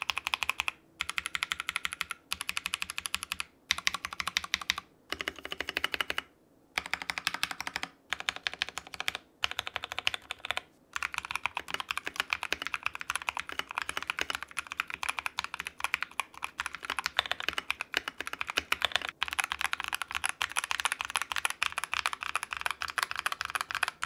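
Typing on an MK870 mechanical keyboard built with tactile switches in a two-piece plastic case. It comes in short runs of fast keystrokes with brief pauses for the first ten seconds or so, then steady, unbroken typing.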